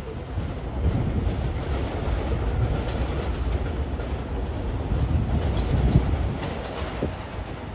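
New York City subway train running past on the rails, a steady rumble that grows a little louder about a second in and eases off near the end.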